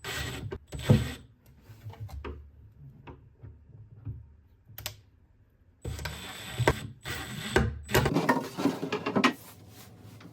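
Irregular mechanical workshop noises: clicks, knocks and short bursts of rubbing and whirring, loudest near the start and again from about six to nine seconds in.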